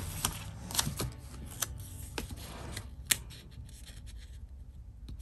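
Hands handling stickers and paper planner pages: light paper rustling with a few small sharp clicks and taps, the sharpest about three seconds in.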